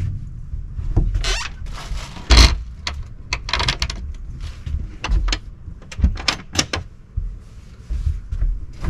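Scattered knocks, clicks and brief rustles of a person moving about and handling things inside a small camper, with one louder knock about two and a half seconds in.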